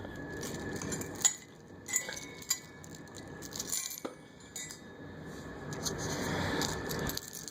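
Steel dog chain, swivel and screw-link C clamp clinking as they are handled and the clamp is twisted shut, with sharp metallic clicks about one, two and four seconds in.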